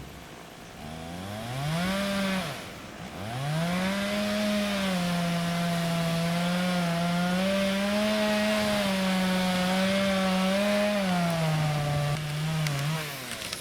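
A two-stroke chainsaw revs up about a second in, dips briefly, then runs at high revs cutting through wood. The engine speed wavers under load, then falls away near the end.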